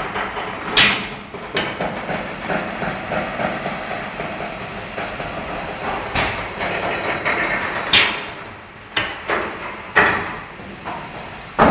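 Sharp bangs or knocks, about eight at irregular intervals and several seconds apart at times, over a steady background noise. The strongest come about a second in, near eight and ten seconds, and at the very end.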